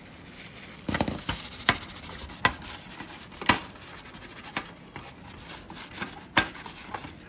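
Cloth rubbing and scrubbing over the plastic frame of an HP printhead cleaning cassette, with a handful of sharp plastic clicks and knocks as the frame is worked on.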